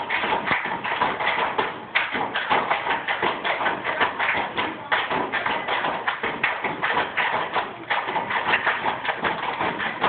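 A group of children step-dancing: rapid foot stomps on a wooden stage and hand claps in a quick rhythm, with short breaks about every three seconds.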